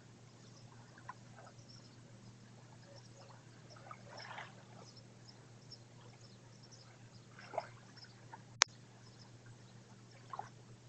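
Small waves lapping softly on a calm sand and pebble shore, a few faint washes over a steady low hum, with one sharp click about two-thirds of the way through as the loudest sound.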